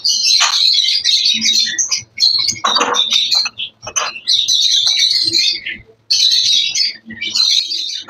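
Many caged lovebirds chattering and screeching in dense, high-pitched stretches with short breaks, along with a few short knocks.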